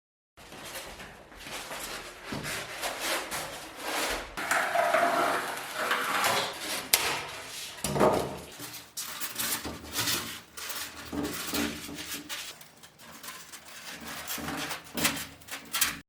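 Irregular knocks, taps and clatter of wood and tools being handled, with one heavier knock about halfway through.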